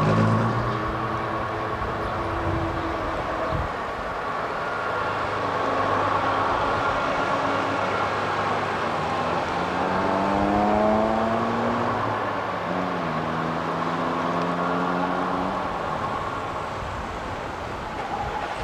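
Bristol RE single-deck bus's diesel engine running and then pulling away: its note rises, drops back at a gear change, and rises again as it accelerates through the gears.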